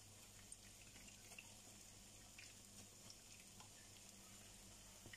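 Faint sizzle of egg-and-moringa omelettes (tortang malunggay) frying in oil in a pan, with scattered small pops.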